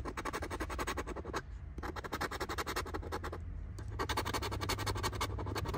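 Rapid scraping strokes of a handheld scratching tool across the coating of a scratch-off lottery ticket, uncovering the play spots. The scraping breaks off briefly twice, about a second and a half in and again about three and a half seconds in.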